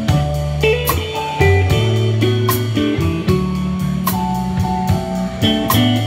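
Live band playing a blues-rock instrumental passage: a Fender Telecaster electric guitar playing held notes over drums, with a cymbal struck about every second and a half.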